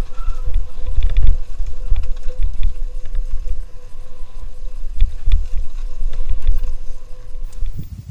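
Mountain bike rattling over a rough dirt forest trail at speed, with wind buffeting the helmet-mounted camera and knocks from bumps on the trail. The noise drops off suddenly near the end.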